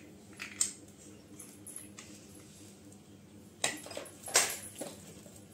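A few brief rustling and handling noises with light clinks as small objects are picked up and moved on the floor; the loudest come in a cluster around four seconds in.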